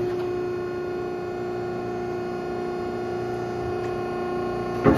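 Hydraulic pump and motor of a 20-ton gap-frame hydraulic press running with a steady hum and whine while the ram cycles in auto mode. A sharp click comes near the end.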